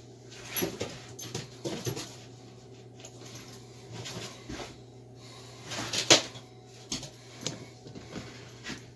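Irregular handling noises: scuffs, rubs and knocks as a hafted axe is turned over in the hands and the camera is reached for and moved, with the sharpest knock about six seconds in, over a steady low hum.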